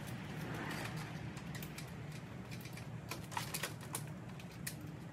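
Scattered light clicks and taps of hands handling parts at a car's headlight and grille, with a short rustle about a second in, over a steady low hum.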